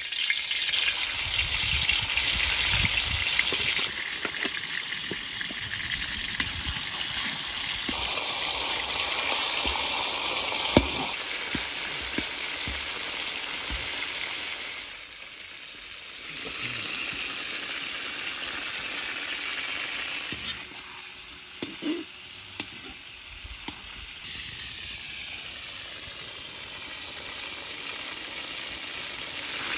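Raw chicken drumsticks sizzling in hot oil in a large metal pan, a steady frying hiss, with occasional sharp clinks of a metal spatula turning them. The sizzle dips briefly twice.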